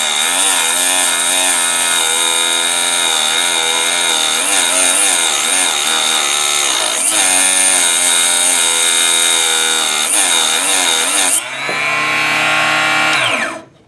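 Harbor Freight 2-inch mini cut-off saw's motor straining as its blade cuts into a thick aluminum piece, the pitch wavering as the load comes and goes. The piece is a bit much for the small saw. About eleven seconds in, the blade lifts clear and the motor speeds up to a steady higher whine, then it is switched off and winds down near the end.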